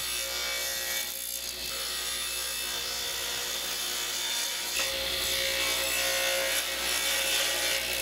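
Table saw running and taking a light skim cut off the edge of a hardwood cutting board, the blade just touching the wood to trim it clean. A steady, even sound throughout.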